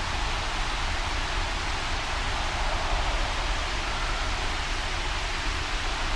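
Recorded storm ambience of wind and rain: a steady, even hiss over a low rumble, with no separate drops, gusts or thunderclaps standing out.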